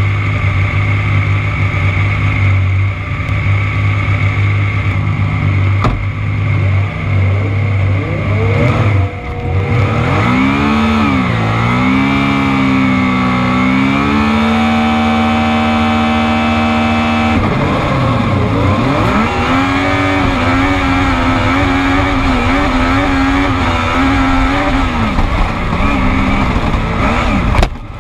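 Supersprint race buggy's engine running steadily at low revs, then about nine seconds in revving up hard as the car launches. Its pitch climbs and drops back at each upshift, then holds at high revs.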